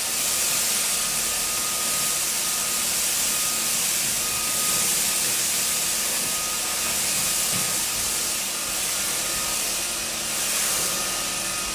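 Cordless stick vacuum running steadily, a strong rush of air with a faint motor whine.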